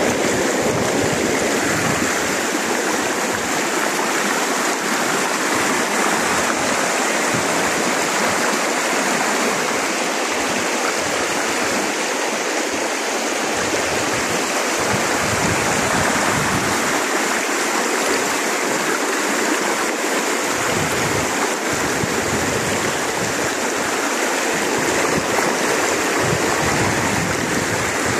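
Shallow river running fast over a rocky bed, a steady rush of water.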